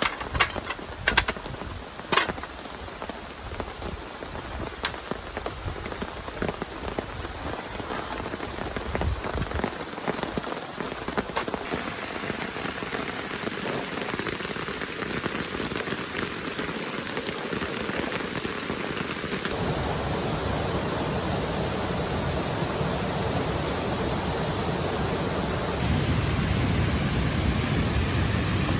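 Heavy rain falling steadily, with a few sharp drop taps in the first couple of seconds; it grows louder toward the end, with the sound shifting abruptly a few times.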